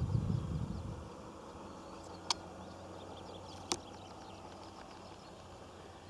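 Faint, rapid chirping of field insects, with a low rumble dying away in the first second and two sharp clicks about a second and a half apart.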